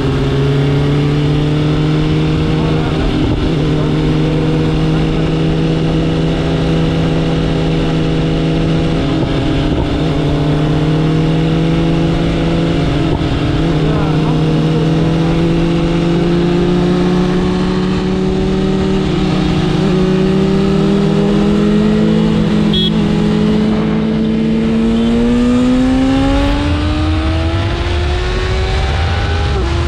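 BMW S1000RR's inline-four engine pulling at steady cruising revs, its pitch creeping up slowly, then revving up more sharply from about 25 seconds in, with a gear change near the end.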